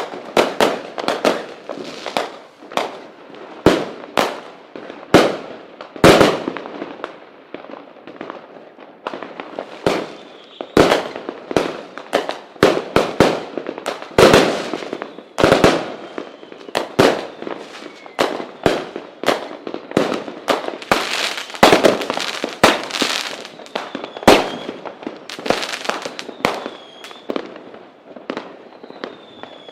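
Fireworks going off in quick, irregular succession: sharp bangs, several a second, with crackling between them.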